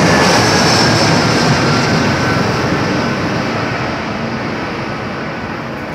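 Jet airliner on landing approach passing low overhead: a loud engine rush that fades steadily over the last few seconds as the plane moves away.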